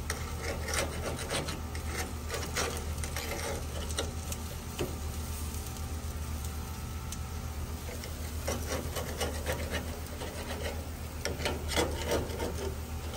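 Metal tongs clicking and scraping against gas-grill grates as chicken breasts are turned, in scattered short bursts with a quieter stretch in the middle, over a steady low hum.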